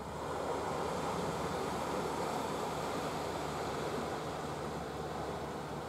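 Steady rushing of wind and sea water at the water's edge. It swells a little at the start and then holds even.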